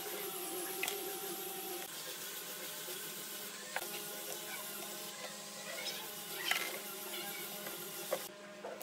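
Wooden coloured pencils clicking and rattling against each other as they are pushed one at a time into a tightly packed bundle in a wooden base: a few scattered light clicks over a steady hum.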